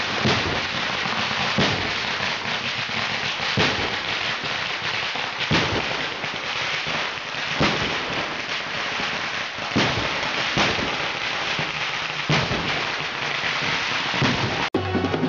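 A long run of firecrackers going off, a dense continuous crackle with louder bangs standing out every second or two.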